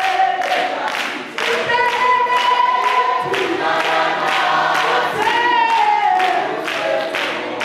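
Congregation singing a gospel song together, led by a woman's voice through a microphone, with steady rhythmic hand-clapping keeping the beat.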